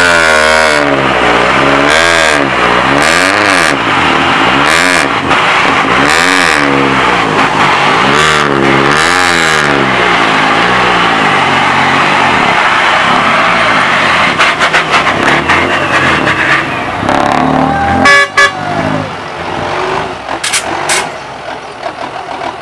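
Kubota tractor and a mud-stuck six-wheel truck running hard under load, the engine pitch climbing and falling again and again as they strain to drag the truck free. About eighteen seconds in the heavy engine sound drops away sharply to a quieter running.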